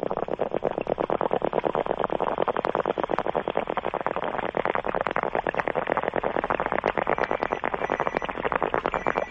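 The show's 'bong' sound effect, a water pipe bubbling in a rapid, steady rattle, played to dump a caller off the air.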